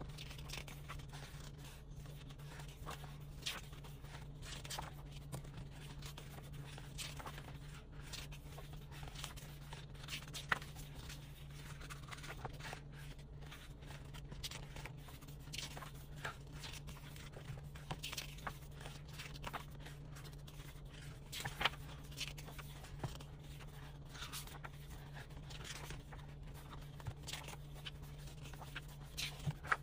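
Glossy photobook pages of a K-pop album being turned by hand: short paper rustles and swishes scattered throughout, a couple of sharper flicks standing out, over a faint steady low hum.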